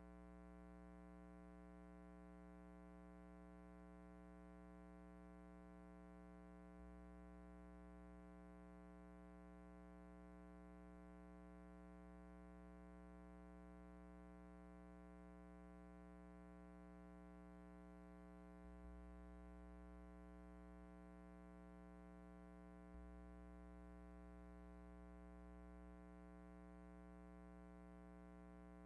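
Near silence: only a faint, steady electrical hum made of many even tones, with no other sound.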